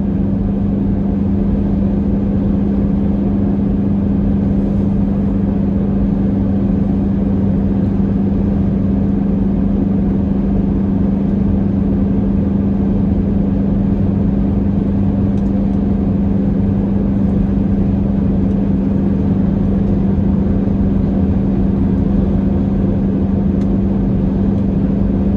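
Semi truck's diesel engine and road noise droning steadily, heard from inside the cab while cruising, with a constant low hum.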